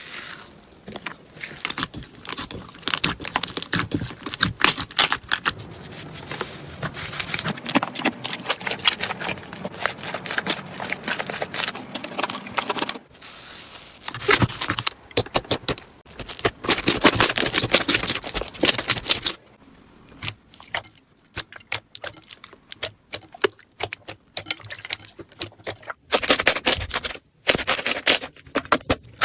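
Slime being squeezed, poked and stretched by hand, giving dense runs of crackling, popping clicks. The sound changes abruptly several times, and some stretches are quieter and sparser.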